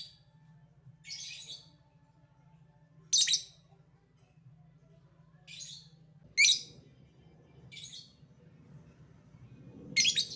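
Lovebird giving short, shrill calls, about six of them spaced one to two and a half seconds apart.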